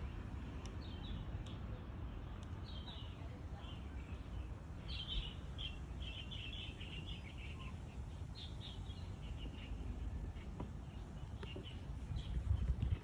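Birds chirping in short, repeated bursts, over a steady low outdoor rumble.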